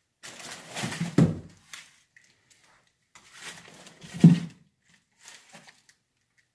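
Three bursts of fabric rustling with dull thumps, the loudest about a second in and about four seconds in: hanging clothes in a closet brushing against the phone as it is pushed among them.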